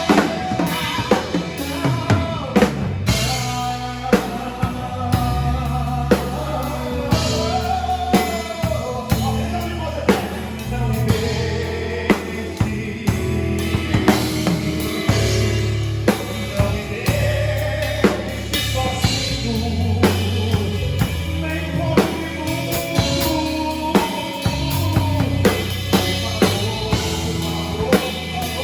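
Live gospel band playing an instrumental passage: a drum kit keeps a steady beat with kick, snare and rimshot hits under a bass line, with a melodic line moving on top.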